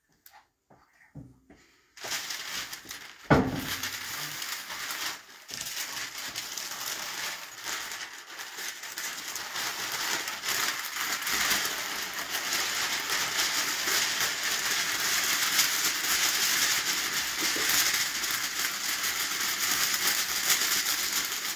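Continuous crinkling and rustling of crinkly material being handled, starting about two seconds in, with a sharp knock about a second later.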